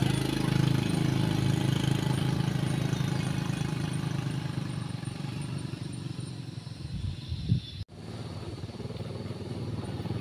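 Small motorbike engines pulling away and fading into the distance. A brief low thump comes just before a sudden cut near the end, after which another motorbike engine grows louder as it approaches.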